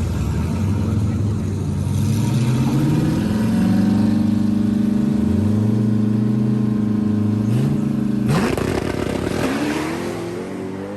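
Drag-race car engines held at steady high revs on the start line, then launching about eight seconds in with a sudden burst of noise and engine pitch sweeping upward through the gears, fading as the cars pull away.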